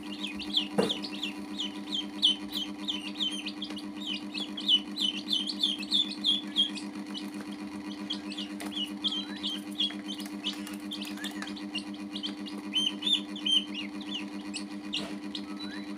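Baby chicks and ducklings peeping: rapid runs of short, high peeps, thinning out after about seven seconds and bunching again near the end, over a steady low hum.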